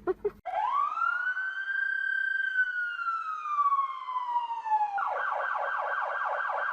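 Siren with a long wail that rises and then falls slowly. About five seconds in it switches to a fast, even yelp warbling about five times a second.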